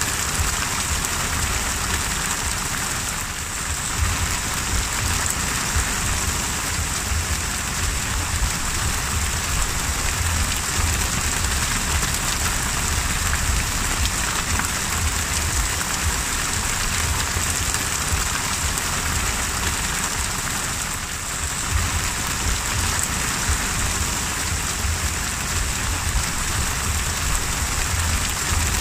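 Heavy rain falling on the open sea: a steady, dense hiss of drops striking the water with a low rumble beneath. It eases briefly twice before returning.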